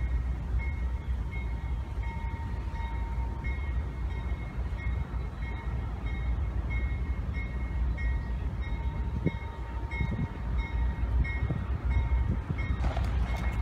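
Approaching Norfolk Southern freight led by two GE AC44C6M diesel locomotives, a steady low rumble, with a bell ringing evenly about three strokes every two seconds. A louder, higher sound rises in near the end.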